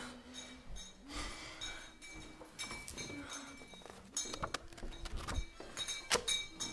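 A run of knocks, clicks and rattles of hard objects, growing busier in the last couple of seconds, over faint held tones.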